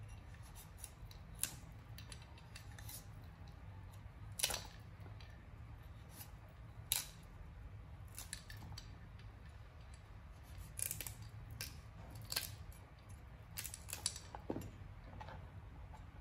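A cleaver slicing through green vegetable stalks on a wooden chopping board: irregular crisp cuts and knocks of the blade on the board, a few at a time, grouped more closely toward the end.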